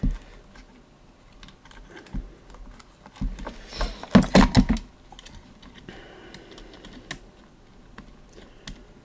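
Scattered small clicks and knocks of parts being handled on a workbench. There is a louder, denser cluster of clicks and knocks about four seconds in, as tight fast-on spade terminals are worked onto the joystick's switch tabs.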